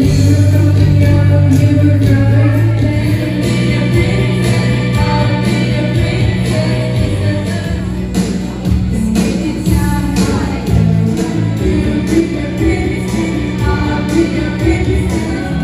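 A woman singing into a microphone over a karaoke backing track, with the audience singing along.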